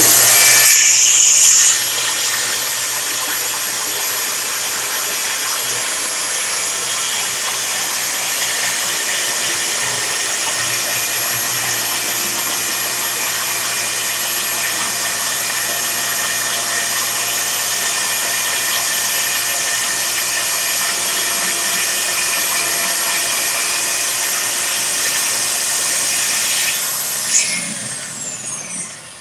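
DeWalt cordless track saw running at full speed and making one long, steady rip cut along its track through a painted wooden door, its high motor whine over the cutting noise. Near the end it is switched off and the whine falls away as the blade winds down.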